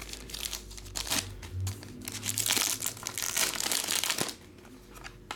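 Clear plastic bag and foil trading-card pack wrapper crinkling in the hands as a cased card is unwrapped, in several rustling bursts that die down near the end.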